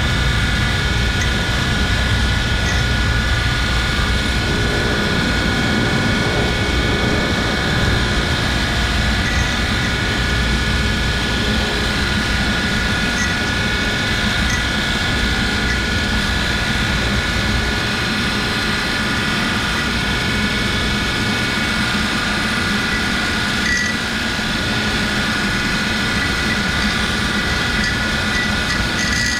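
A steady machine drone, with a constant high whine layered over a low rumble and no change in pitch or level.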